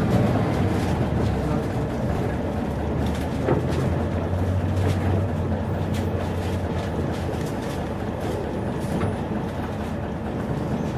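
Mitsubishi P-MP218M bus under way, heard from inside the cabin: a steady engine hum and road noise after the engine pitch stops rising at the start, with a few sharp clicks and rattles.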